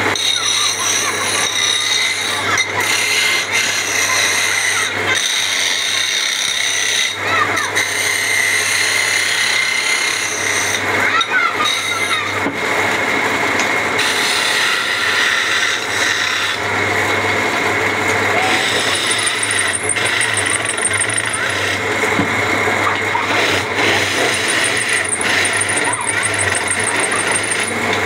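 Wood lathe running steadily with a motor hum underneath, while a hand-held steel chisel scrapes and cuts the spinning wooden charpai leg in a continuous rasping.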